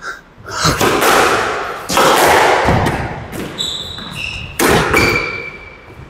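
Squash rally: the ball cracking off the racket and the walls, each hit about a second apart and ringing in the enclosed court, with shoes squeaking on the court floor a little past the middle.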